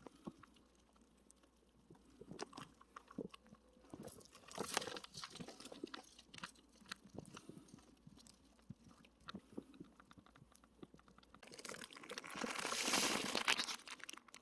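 Scattered clicks, taps and crackles of things being handled, with a rushing hiss for about two seconds near the end.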